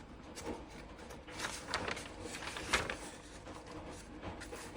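Rustling and light handling knocks, a cluster of short scrapes and taps with the sharpest one a little before the three-second mark.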